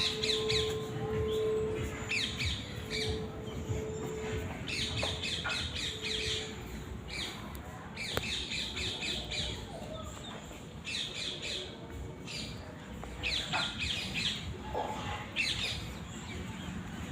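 Birds calling over and over in short clusters of quick, high calls, while a bell's ring fades away in the first few seconds.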